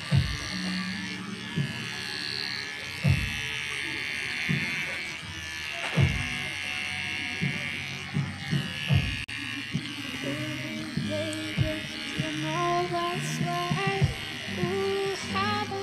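Electric hair clipper buzzing steadily as it cuts hair. Background music plays along, with a clear melody coming in during the second half.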